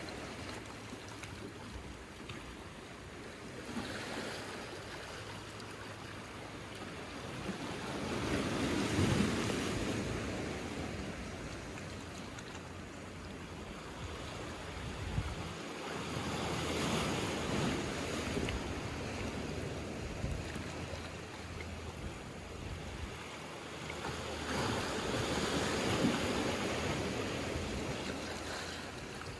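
Small sea waves washing in over rocks and a pebble shore. Each wave surges up and hisses away, the larger ones coming about every eight or nine seconds.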